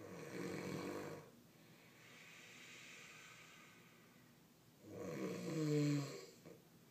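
A man snoring: a snore on the in-breath at the start, a quieter breathy out-breath, then a second, louder snore about five seconds in with a pitched rattling tone.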